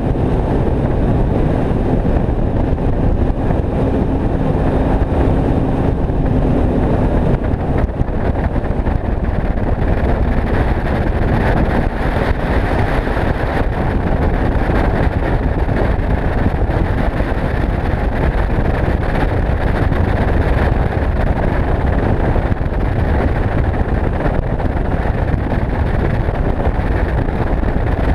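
Skeeter bass boat running at speed across choppy river water: an outboard engine drones steadily under a heavy, unbroken rush of wind on the microphone.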